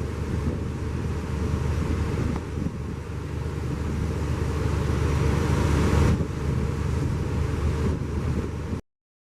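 Wind buffeting the microphone at sea aboard a ferry, a steady rumbling rush of wind and water noise. It swells about six seconds in and cuts off abruptly near the end.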